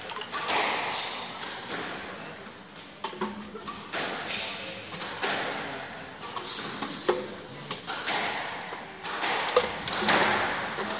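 Squash rally: the ball cracks off racquets and the court walls in a run of sharp hits, with shoes squeaking on the court floor between shots.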